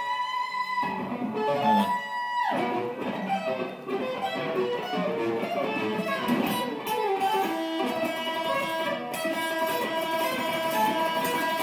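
Handmade Stratocaster-style electric guitar being played: a lead line of single notes, with a note sliding down in pitch about two seconds in, then a continuing run of notes.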